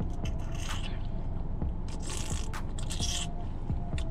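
Someone sipping and gulping Kool-Aid from the rim of a plastic cup, with two louder slurps about two and three seconds in and small mouth and swallowing clicks between them. A steady low rumble runs underneath.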